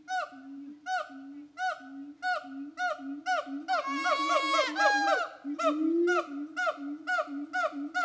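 Siamang gibbon calling: a low booming tone from its inflated throat sac under a rhythmic run of short hoots, about two a second. About three and a half seconds in, higher drawn-out notes overlap the hoots as the call builds, then the plain hoot series goes on.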